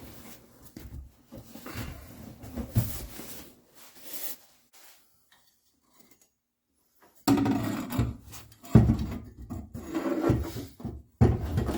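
Rear seat of a classic car being worked loose and pulled out by hand: irregular rubbing, scraping and knocks, a gap of near silence a few seconds in, then louder bumps and scraping.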